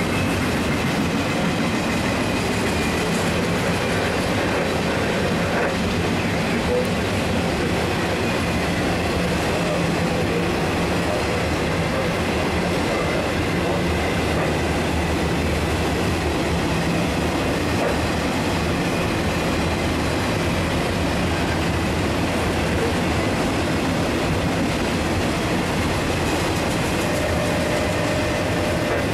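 A freight train's autorack cars rolling past at close range: steady noise of steel wheels on rail, with a faint, thin high tone held above it.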